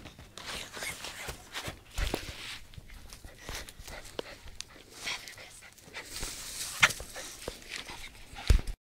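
A dog panting and moving about, with scattered clicks and rustles and a couple of sharper knocks near the end.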